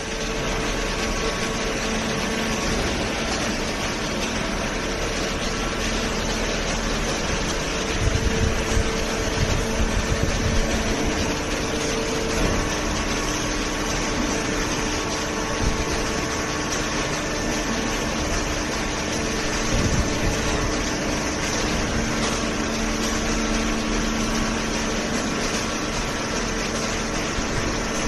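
Hydraulic waste-paper baler line running: a steady machine hum and rumble, with a few low knocks about eight to ten seconds in and again near twenty seconds.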